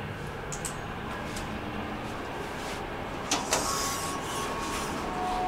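Steady low hum of an underground metro station. About three seconds in come two sharp clicks, then a steady high tone that holds, and a second, lower tone joins near the end.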